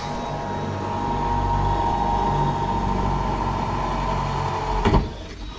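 Power drill running steadily as it bores a pilot hole down through the van's sheet-metal floor, heard from underneath the van. The whirring stops near the end with a sharp knock.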